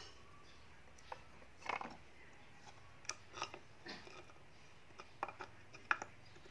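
Pieces of dry, dark wood handled on a plastic plate: scattered light clicks, knocks and short scrapes as they are touched and shifted, more of them in the second half.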